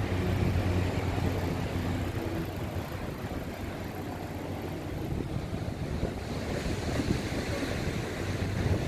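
Wind buffeting the microphone as a steady low rumble, with a faint engine hum in the first three seconds. A higher hiss comes in about two-thirds of the way through.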